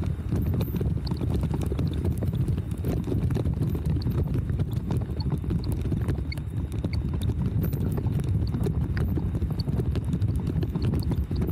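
Bicycle rolling over paving stones, a steady low rumble with quick irregular clicks and knocks as the bike and its mounted camera rattle.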